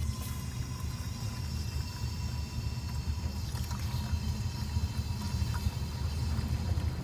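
BMW E30's straight-six engine idling while water is poured into its overheated cooling system, which has lost its radiator and coolant; a few sharp ticks sound over the steady idle.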